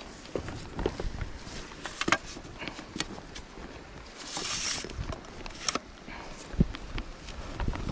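Irregular clicks, knocks and rustling of a person moving about on a grassy riverbank with fishing tackle, with a short hissing rush about four seconds in and a couple of low thumps near the end.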